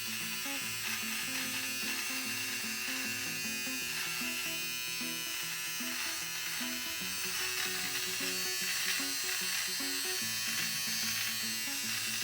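Philips MG3722 battery hair trimmer running steadily, its blades buzzing as it trims hair on skin. Background music with changing notes plays under it.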